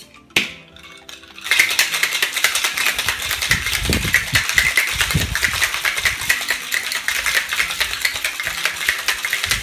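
Ice rattling rapidly and loudly inside a stainless steel cocktail shaker being shaken hard, which chills and mixes vodka and lemon juice. It starts about a second and a half in, after a couple of metal clicks as the shaker is closed.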